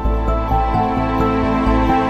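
Instrumental background music: gentle held notes over a steady low bass.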